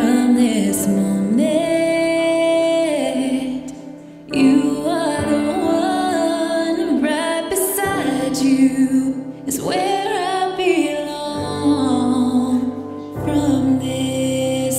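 Music: a woman singing a slow melody in long held notes, with a brief drop in level about four seconds in.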